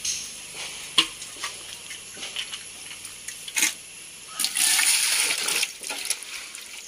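Water from a metal pot drawn up from a well on a rope, gushing and splashing into a steel pot of leaves for about a second and a half past the middle. A few sharp clicks and knocks come before it.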